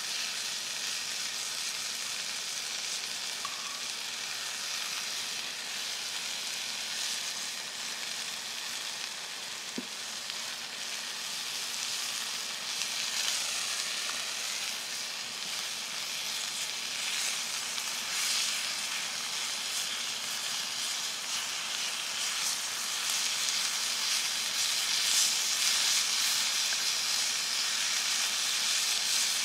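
Meat sizzling as it fries in a skillet over a campfire: a steady frying hiss that grows louder over the last third.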